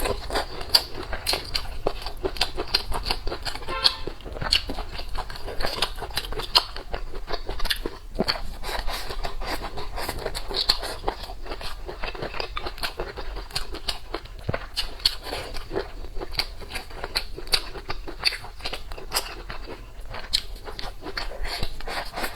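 Close-up eating sounds: crunchy bites and chewing as a sharp, irregular run of clicks and crackles.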